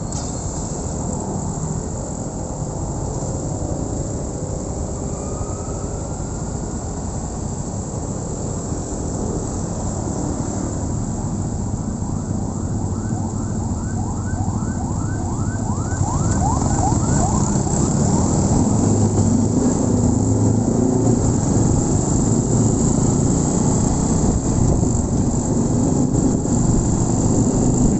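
Honda Win 100's single-cylinder four-stroke engine and wind rush on the move, growing louder a little past halfway. About halfway through, a siren-like warble of quickly repeated rising tones sounds for a few seconds.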